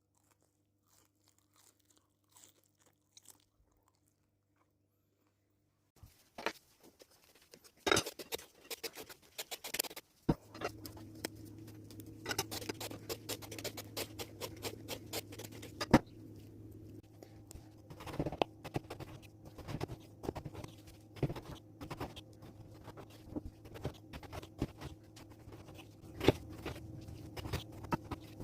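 Kitchen cooking sounds: a quiet start, then a run of sharp clicks, crackles and knocks from about six seconds in. About ten seconds in, a steady low hum joins them.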